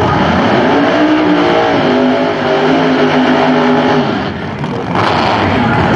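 A Pro Nitrous drag car's big-block V8 running at high revs through a burnout, its rear tyres spinning. The engine eases off briefly a little past four seconds in, then comes back on hard.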